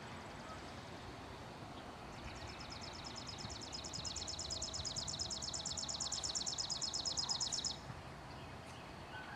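A high, rapid trill of evenly spaced pulses from a small animal, starting about two seconds in, growing louder for over five seconds and then stopping abruptly, over a steady outdoor background hiss.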